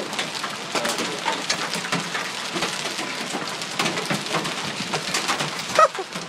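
Hailstones pelting down in a dense, irregular clatter on pavement, parked cars and umbrellas.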